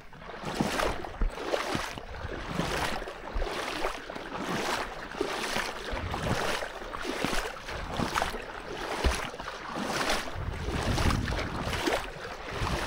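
Someone wading through a shallow trout stream, water sloshing and swishing with each step, about one step a second.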